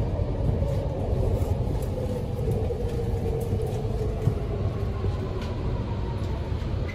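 Sydney Metro train heard from inside the carriage, a steady running rumble with a faint motor whine that slowly falls in pitch.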